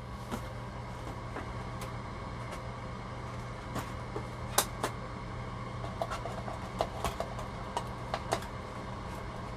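Scattered light clicks and taps of plastic toy parts and cardboard being handled inside a shipping box, more of them in the second half, over a steady low hum.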